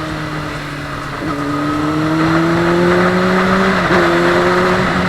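Honda CBR600RR inline-four engine under acceleration, its pitch climbing steadily and dropping sharply twice, about a second in and again near four seconds in, as it shifts up through the gears.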